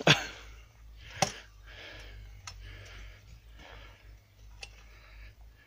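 Sharp clicks and knocks, a hard one right at the start and a few lighter ones spread over the next seconds, with soft scuffing in between, from tree-seedling planting work.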